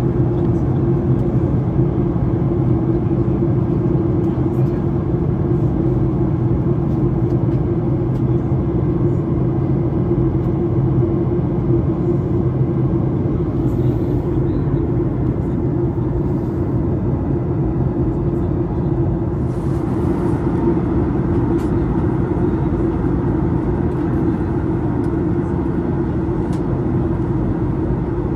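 Steady cabin drone of a Boeing 737-800 in flight on descent: the CFM56-7B engines and rushing airflow, with a constant low hum. A brief hiss about twenty seconds in.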